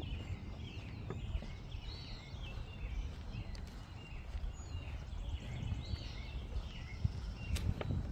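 Birds chirping, many short calls that rise and fall in pitch, over a low, uneven rumble.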